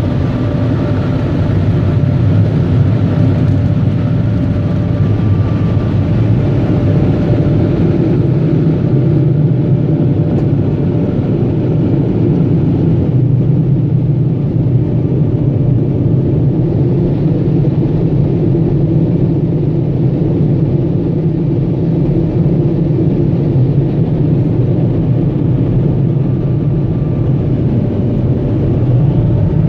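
Steady, loud rumble and rush of air heard from inside a minivan's cabin, with a faint hum. It is a little brighter in the first several seconds, then duller.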